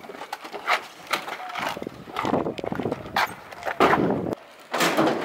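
Scuffling and handling noise around a pickup truck's open doors, with several sharp knocks and thuds.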